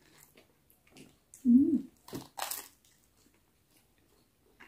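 Crunching bites and chewing of crisp buttered toast, with a short hummed "mm" about a second and a half in and a couple of crackling crunches just after.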